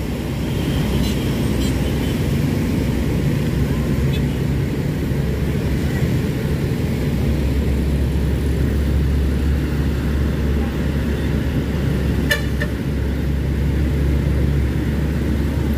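Slow uphill road traffic: motorcycles and a heavy diesel truck running in low gear, the truck's deep engine drone growing louder from about seven seconds in as it climbs past. A short sharp sound rises above the traffic about twelve seconds in.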